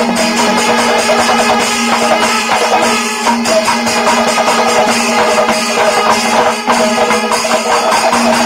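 Background music with a steady percussion beat over a held low tone.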